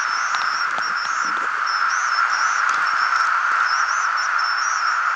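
Home-built direct-conversion receiver of Polyakov's design, tuned to the 40 m amateur band, putting out steady band noise as a hiss between transmissions. Faint, broken high-pitched beeps and a few light clicks come through the hiss.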